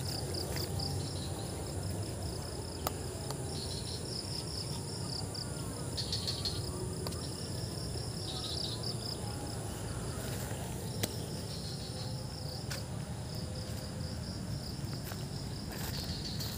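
Insects chirping in pulsed, high trills that come and go, over a steady low rumble, with two short sharp clicks, about three seconds in and about eleven seconds in.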